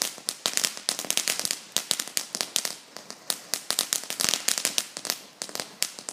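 Fireworks crackling: a dense, irregular run of sharp cracks and pops, several a second.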